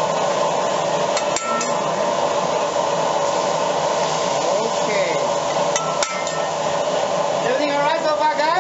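A metal spatula clanks and scrapes on a hibachi griddle's steel plate, with sharp clinks about a second in and again about six seconds in, over steady sizzling and room noise. Voices come in near the end.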